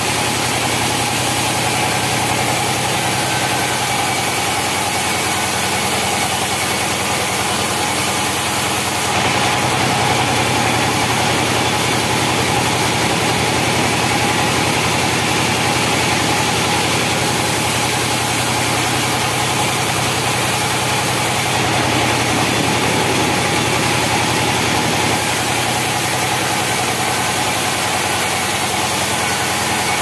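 Sawmill saw and its drive engine running steadily, the blade cutting through timber.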